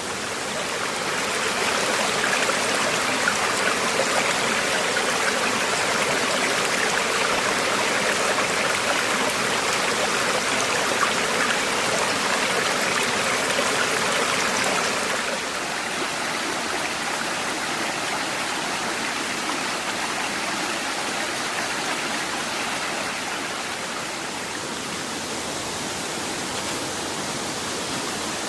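Steady rushing of a mountain stream. It grows louder about a second in and drops back to a lower level about halfway through.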